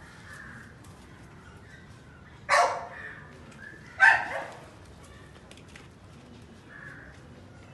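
Siberian husky puppy giving two loud, short barks about a second and a half apart.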